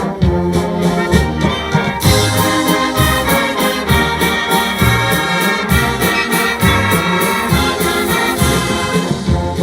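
Massed brass band playing a hymn in full chords, with a steady beat of bass notes in the low brass. The sound turns brighter about two seconds in.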